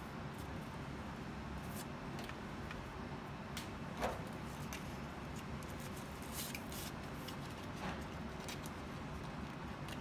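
Handling noises: soft rustling of tissue paper and scattered small clicks as a small aluminium tube is unwrapped and its cardboard box handled, over a steady low background hiss. One sharper click about four seconds in.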